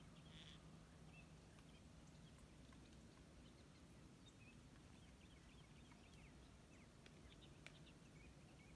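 Near silence: faint outdoor ambience with scattered soft ticks and chirps over a low steady hum.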